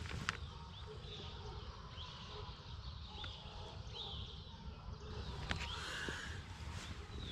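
Birds calling with short, high downward chirps, repeated every second or so, over a low rumble.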